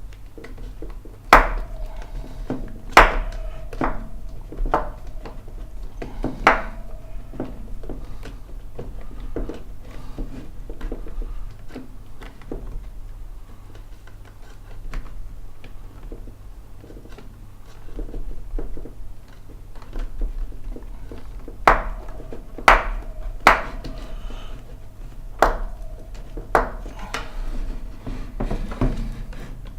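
Hand tools and parts clicking and knocking against a 3D printer kit's acrylic frame while M3 screws are tightened, in two bursts of sharp knocks, several leaving a short ringing tone. A steady low hum runs underneath.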